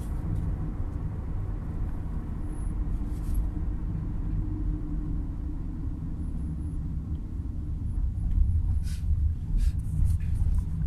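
Steady low rumble of road and engine noise inside a moving car's cabin, growing a little louder in the last few seconds, with a few faint clicks late on.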